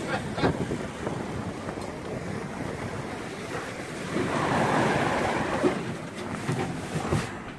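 Sea water rushing and splashing along a sailboat's hull under way in open ocean, with wind buffeting the microphone; the rush swells louder about four to five seconds in.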